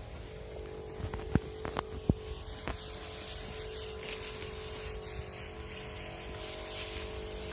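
A motor running steadily, with a few sharp clicks or taps between about one and three seconds in.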